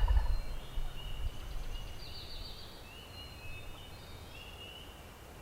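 The end of a distant wild turkey gobble right at the start, then small songbirds whistling and trilling in the background, with a brighter trill about two seconds in.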